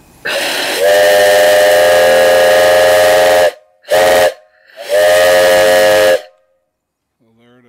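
Antique brass steam whistle on a fire-tube boiler blown three times: a long blast, a short one, then another long one. The first blast opens with a brief rush of steam before the tone settles.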